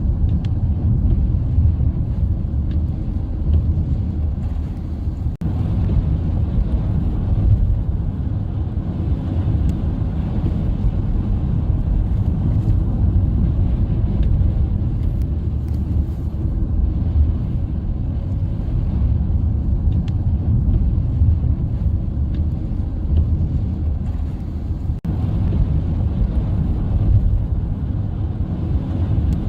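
Steady low rumble of a moving car, breaking off for an instant twice.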